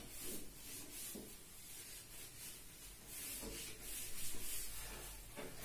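A cloth duster rubbing marker writing off a whiteboard: faint, repeated back-and-forth wiping strokes.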